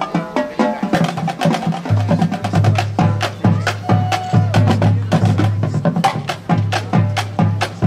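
High school marching band playing its field show, heavy with percussion: rapid sharp drum and mallet strikes. About two seconds in, low sustained bass notes join the percussion.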